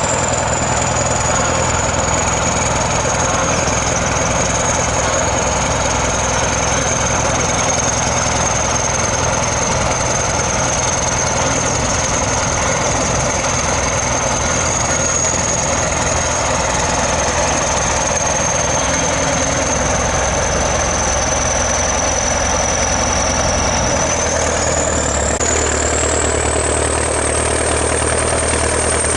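ChTZ T-170 bulldozer's diesel engine running steadily with a high whine over it. The whine slowly sinks in pitch, then rises again about 25 seconds in as the engine note changes.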